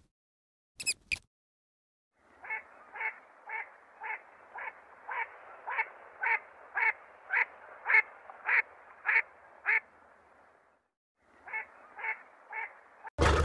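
An animal giving a steady series of short, harsh calls, about two a second. After a brief pause it gives four more.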